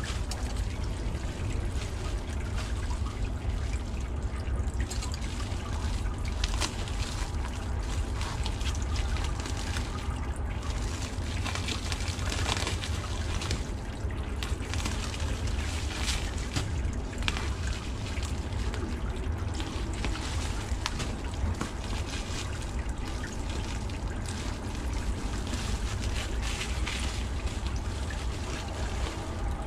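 Clear plastic wrapping on a parcel crinkling and rustling as it is handled and cut open with scissors, with scattered sharper crackles, over a steady rushing background with a low rumble.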